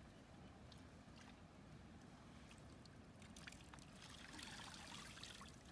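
Faint trickle of water with a few soft clicks, a little louder near the end.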